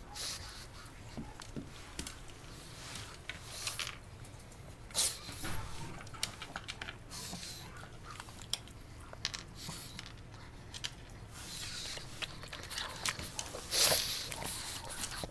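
A pug chewing a crunchy bone-shaped dog biscuit, with irregular short crunches and clicks throughout. A louder rustle comes near the end.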